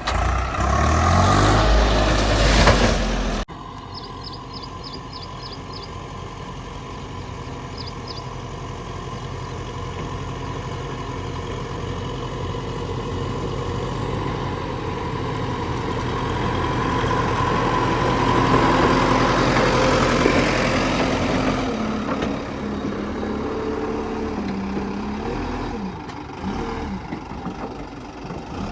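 Heavy diesel engine running steadily, with an abrupt cut about three and a half seconds in from a louder stretch to a quieter engine sound that slowly builds and eases off near the end.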